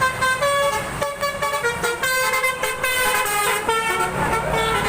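Bus telolet horn playing a tune: several air-horn tones sounding together and stepping through changing pitches in quick succession. A low rumble swells near the end.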